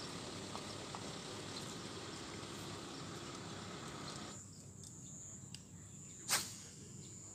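Steady outdoor background noise, then a steady high buzz of crickets; about six seconds in, one short sharp splash-like burst as a snakehead strikes the lure and the rod is swept up to set the hook.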